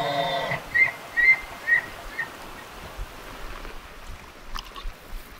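Bull elk bugling: the tail of a high whistled note over a lower growl, then four short chuckles about half a second apart.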